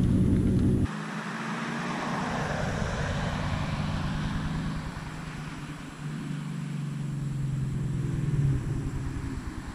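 Ford Mustang GT's 5.0 V8, running with an X-pipe and no mufflers or resonators, as a loud deep exhaust rumble while the car pulls away. After about a second it cuts abruptly to a quieter, steady engine note from the car some way off, which swells about six seconds in and falls away near the end.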